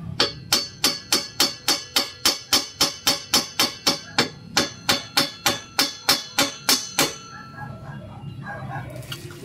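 Hammer striking a steel exhaust pipe at its joint under a car: about two dozen ringing metallic blows, some three or four a second, stopping about seven seconds in. The blows are knocking loose an exhaust section that is stuck at the joint.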